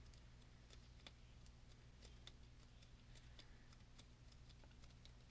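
Near silence: a low steady hum with scattered faint ticks from cardstock being pressed and folded between the fingers.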